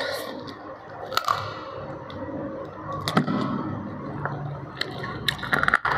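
Close-up chewing of a mouthful of ayam geprek, smashed crispy fried chicken, with sharp crunches and crackles every second or two and a quick cluster of them near the end.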